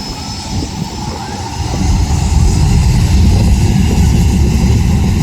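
Jet aircraft engines running at close range, a deep rumbling rush that grows louder about two seconds in.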